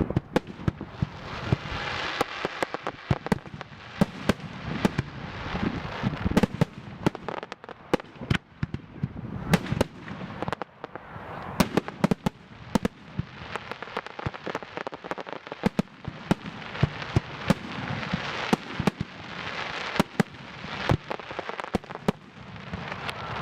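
Aerial firework shells bursting in quick, irregular succession: many sharp bangs, often several a second, over a constant rumble of noise.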